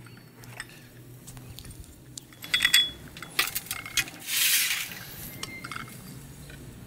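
Crockery and cutlery clinking at a café counter as a small coffee is prepared. There is a quick run of ringing clinks about two and a half seconds in, then a few knocks, a short hiss about four and a half seconds in, and lighter clinks near the end.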